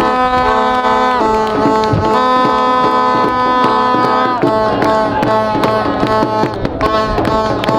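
Music: held chords from sustained pitched instruments over a steady, busy percussion beat, with the chord changing about a second in and again around four seconds in.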